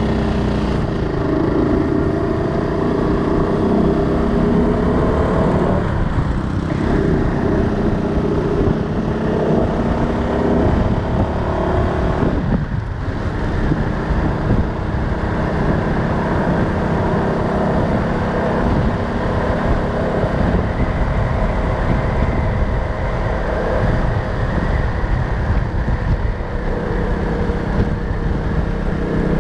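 City street traffic, mostly small motorbike engines, their pitch rising and falling as they speed up and slow down, over a steady low rumble.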